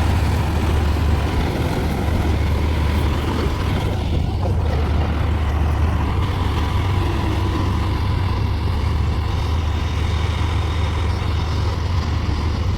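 Diesel engine of heavy farm machinery working a rice harvest, running steadily at close range with a deep, even hum.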